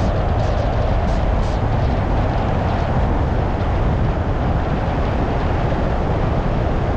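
Car driving on a rural dirt road: steady engine and tyre rumble, with a few faint ticks about a second in.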